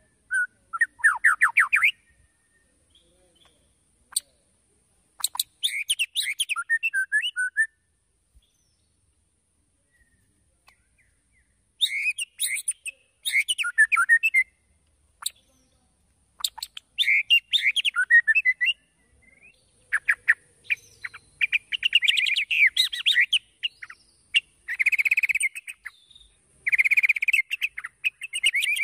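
White-rumped shama (murai batu), a male, singing in bursts of fast, varied chirps, trills and slurred whistles. There is a pause of a few seconds in the middle, then the phrases come back closer together.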